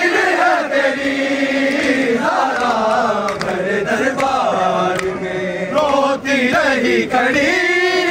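Men's voices chanting a noha, a Shia Muharram lament, in a slow melody that rises and falls without a break.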